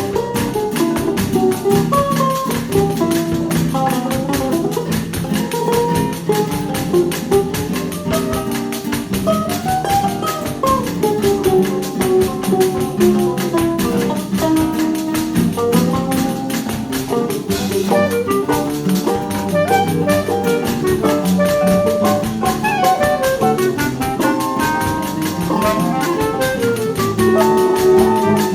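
Choro ensemble of clarinet, bandolim, six- and seven-string violão, tuba, pandeiro and drum kit playing an instrumental choro: running melody lines over a plucked-guitar and tuba bass and a steady pandeiro rhythm.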